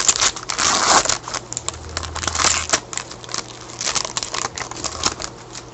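Trading cards and papers being handled and shuffled: a run of short rustles and light taps.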